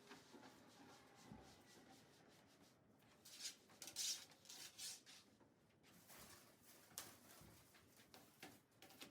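Faint household handling sounds: soft rustling, loudest about three to five seconds in, and a few light clicks and knocks.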